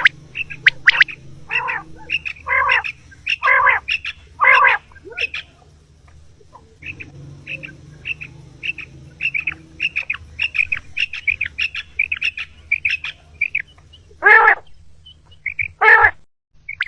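Common quail (batair) calls, the female's calls used as a lure for net hunting: quick runs of short, high chirps, with louder, longer calls among them in the first few seconds and twice near the end, over a low steady hum.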